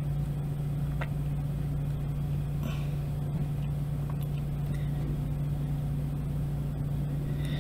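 A steady low hum, with a faint click about a second in.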